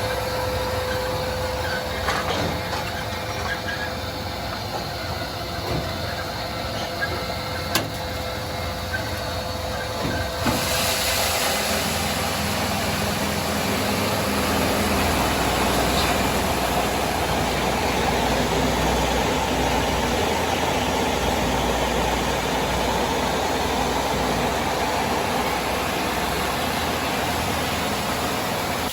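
Corn grits milling machine running with a steady mechanical noise. About ten seconds in a louder hiss joins it, and there are a few sharp ticks before that.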